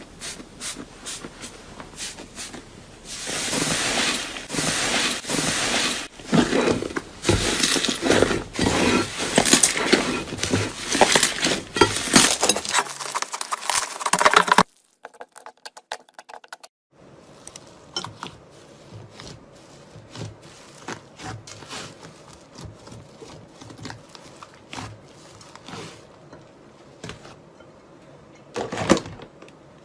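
Slime being squeezed and worked by hand, giving dense crackling and clicking pops. The sound is loudest in the first half, breaks off for a couple of seconds about halfway through, then goes on as quieter, sparser clicks.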